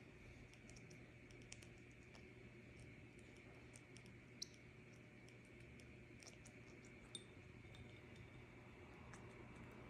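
Faint, scattered small clicks of a parrot's beak working at berries, with two slightly sharper clicks near the middle and about seven seconds in, over a low steady hum.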